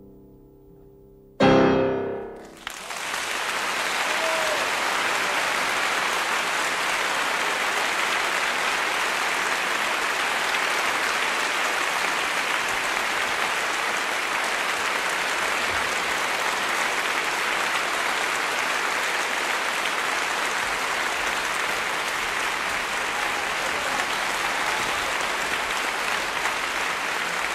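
Piano finishing a song with soft closing notes and then a loud final chord about a second and a half in that dies away. Audience applause follows and goes on steadily.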